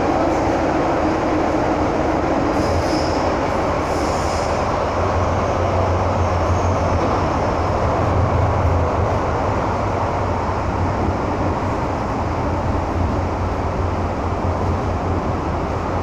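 Inside the carriage of a Hong Kong MTR M-Train running through the tunnel: a steady, loud rumble of wheels on track and motors, with a low hum that swells about five seconds in. A few short, high wheel squeals come around three to four seconds in.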